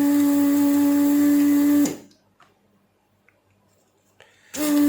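Steady electric hum of a small bench tool working on the circuit board as the IGBT is removed. It runs until about two seconds in, stops, then starts again near the end.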